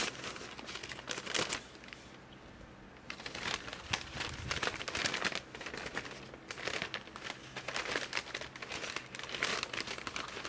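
Plastic mailer bag crinkling and rustling as it is handled and pulled open, with a short lull about two seconds in.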